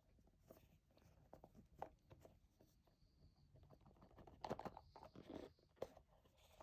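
Faint rubbing and rustling of a tight friction-fit product box lid being slowly worked off, with scattered small clicks and a louder rustle about four and a half seconds in.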